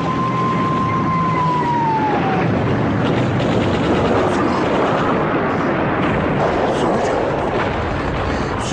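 A steady, loud roaring rumble. A thin high whistling tone holds over it and then slides down, fading about two seconds in.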